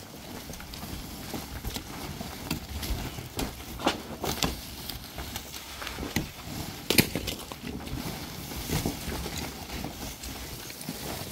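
Pickaxe and shovel breaking up an earthen roof: irregular knocks and scrapes of the tools biting into packed dirt and rubble, with loose debris clattering down. The sharpest strike comes about seven seconds in.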